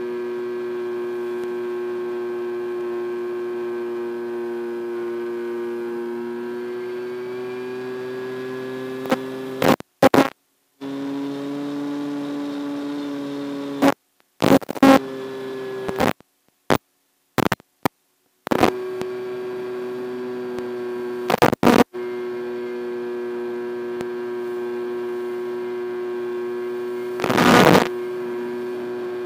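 Steady buzzing hum with a stack of even overtones, the sound track of an analog FPV video link. It cuts out several times in the middle with short crackles of static, and a louder burst of static comes near the end.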